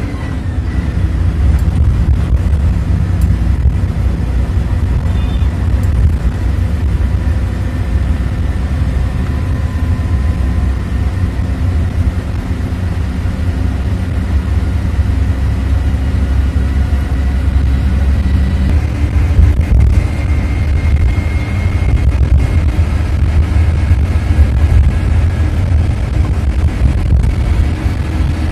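Bus engine and tyre noise from inside the cabin while driving: a steady, loud low rumble.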